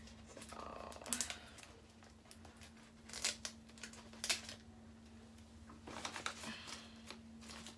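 Scattered crinkling and rustling of the plant's paper and plastic wrapping as it is handled, in short bursts a few times, over a faint steady hum.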